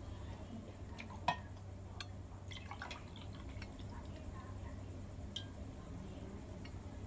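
Tea poured from a glass pitcher into a drinking glass, a short trickle and patter of liquid, with a few light clicks and knocks of chopsticks and glass being handled and set down on the table.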